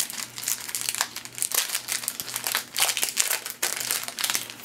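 Wrapper of a pack of baseball cards being opened and crinkled by hand, a dense run of irregular crackles.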